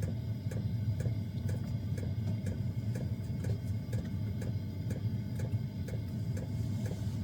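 Small diesel air heater running: a steady low hum with its fuel pump ticking about twice a second.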